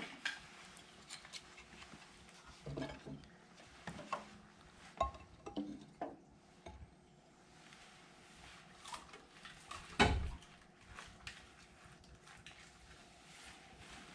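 Irregular knocks, clinks and crackles at a wood-burning stove as kindling is laid in and starts to burn, with one louder thump about ten seconds in.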